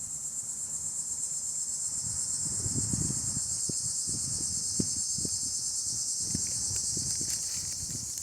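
A steady, high insect chorus, such as crickets or cicadas, chirring without pause, with scattered soft low thumps beneath it.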